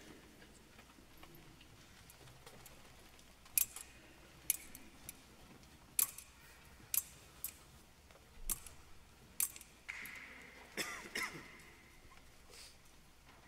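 Metal thurible clinking against its chains as it is swung to incense the Book of the Gospels: about eight sharp metallic clinks, roughly in pairs, the later ones ringing briefly.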